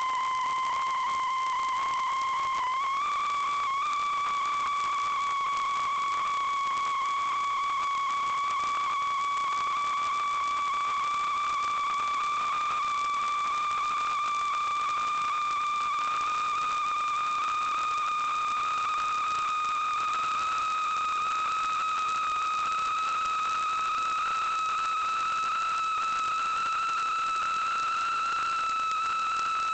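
A steady whistle-like tone that rises slowly in pitch, with a small jump up about three seconds in.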